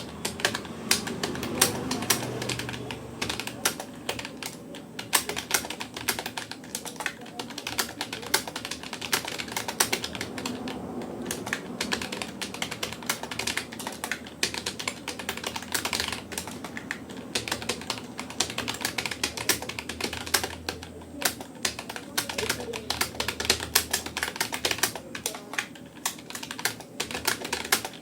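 Fast, continuous touch-typing on a Rapoo computer keyboard: a rapid, irregular stream of key clicks with occasional louder keystrokes.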